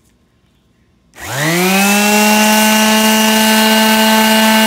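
A quarter-sheet orbital sander with 220-grit paper is switched on about a second in. Its motor winds up with a rising whine to full speed, then runs steadily as it sands the epoxy-coated wood.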